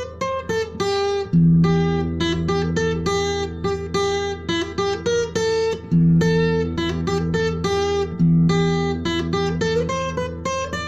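Instrumental acoustic guitar music: a quick run of plucked notes over deeper bass notes, which change about a second in, near the middle and again about two seconds later.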